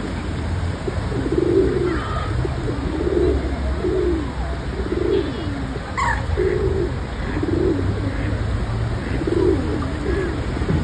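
A bird calling over and over in short, low calls, about one a second, with small birds chirping higher above it and one quick falling chirp about halfway through.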